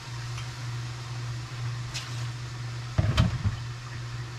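Steady low hum in a kitchen, with a faint click about two seconds in and a cluster of dull knocks about three seconds in.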